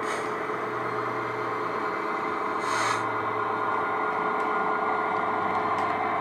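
Model train running on the layout: a steady mechanical hum, with a short hiss about three seconds in.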